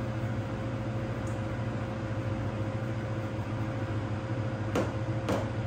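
Steady low mechanical hum, with two short clicks near the end.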